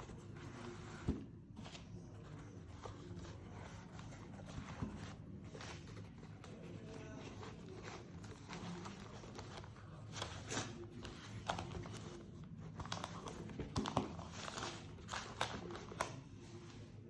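Handling noises from a leather clutch and its packaging: soft rustling with light clicks and taps. There is a sharp knock about a second in, and the rustling and clicks grow busier and louder over the second half.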